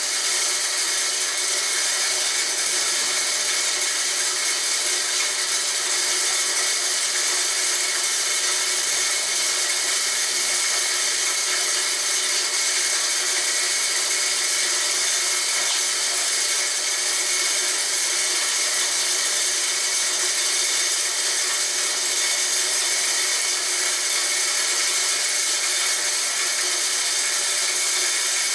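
Homemade corn grinder made from a water pump running steadily while grinding corn: an even, continuous mechanical whirring and hiss with several steady high tones.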